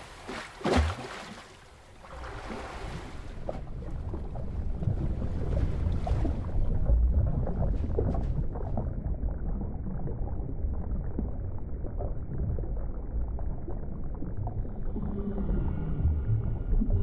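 Sea water and surf sounds that sink into a muffled, deep, steady underwater rumble, as if heard below the surface. Near the end, long gliding whale calls begin over it.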